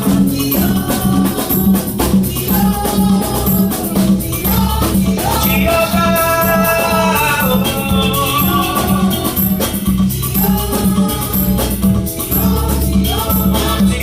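Live gospel praise music: voices singing over shakers and a steady, repeating beat.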